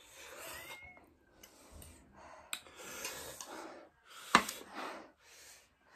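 Heavy, hissing breaths through the mouth, in and out several times, from someone whose mouth is burning from spicy ramen. A sharp click sounds about two and a half seconds in, and a louder one about four and a half seconds in.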